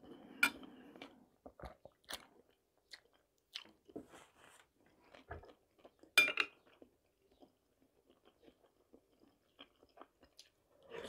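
Close-up chewing and crunching of a mouthful of okroshka, the cold soup of cucumber, sausage, egg and potato, as short scattered crackles. About six seconds in, a metal spoon clinks sharply against the glass bowl, the loudest sound.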